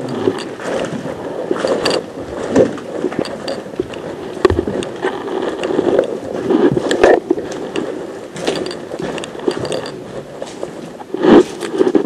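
Footsteps, scuffs and rustling of clothing and gear as people walk, with several sharper knocks, the loudest near the end.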